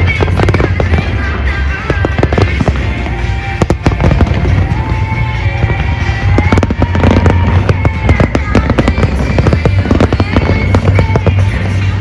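Fireworks display: many aerial shells bursting in quick succession over loud show music with a steady deep bass.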